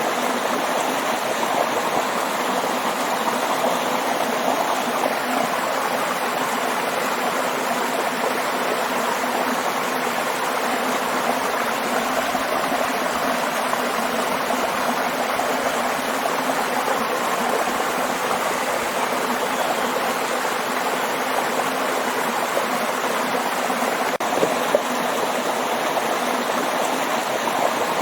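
Waterfall: falling water rushing in a steady, unbroken wash.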